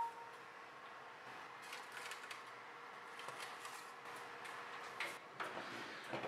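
The enamelled cast-iron lid of a Le Creuset Dutch oven being lifted off inside a hot oven: faint scattered clicks, then a few sharper clicks and light clatter about five seconds in.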